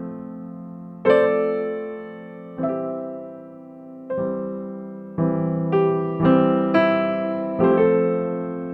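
Background music: electric piano chords struck one after another, each ringing and fading before the next, coming closer together in the second half.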